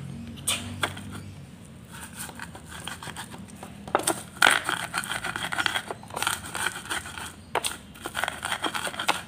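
Stone pestle (ulekan) crushing and grinding peanuts, garlic and chillies against a clay mortar (cobek): scraping and crunching strokes, sparse at first, then rapid and louder from about four seconds in.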